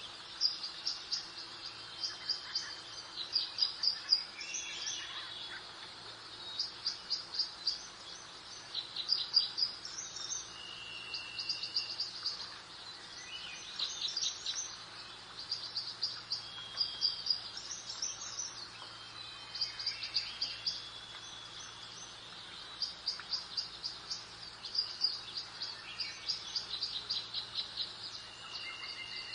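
Songbirds singing: bursts of quick, repeated chirps and short trills, one after another, over a steady soft background hiss.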